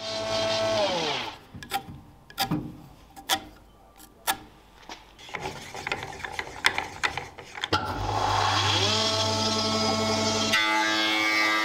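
Power saw cutting triangular wooden blocks: the motor runs, winds down about a second in, then several sharp knocks and clatters of wood pieces being handled, and the motor spins back up near the end and runs steady.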